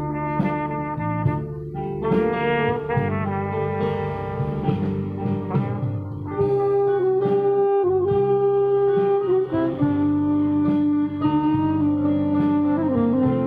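A live band playing a slow melody: trumpet over a backing accompaniment, with a saxophone coming in about halfway through on loud, long-held melody notes.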